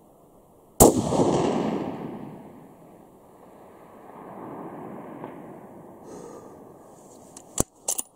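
A single rifle shot from a 6.5 Creedmoor Ruger Precision Rifle about a second in, its report rolling away in a long echo across the hills, with a fainter rumble swelling back a few seconds later. A quick run of sharp clicks near the end.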